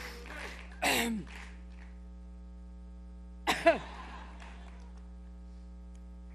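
A woman coughing into a microphone during a coughing fit: two short voiced coughs about two and a half seconds apart, the second the louder, over a steady mains hum from the sound system. Crowd noise fades out in the first second or so.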